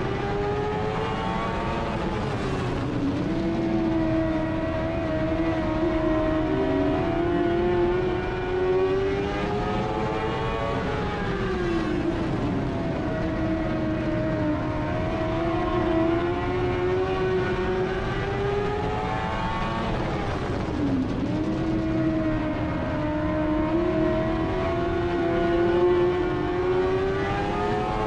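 Dirt-track race car engine running hard, heard from inside the cockpit. Its pitch drops sharply three times, about nine seconds apart, as the car comes off the throttle for the turns, then climbs back along each straight.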